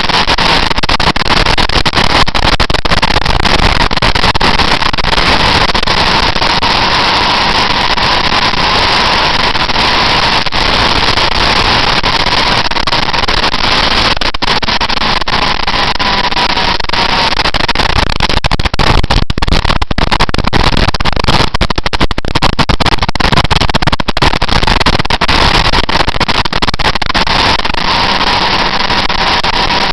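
Wind roar and buffeting on the microphone of a camera mounted on a motorcycle at speed, with the motorcycle engine's whine faintly coming through a few times.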